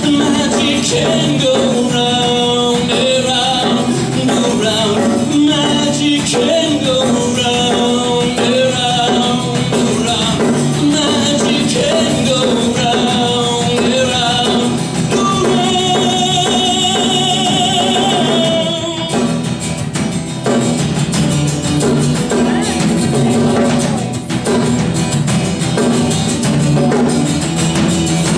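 Live acoustic guitar strumming with a man singing over it; the voice drops out about two-thirds of the way through, leaving the guitar playing on.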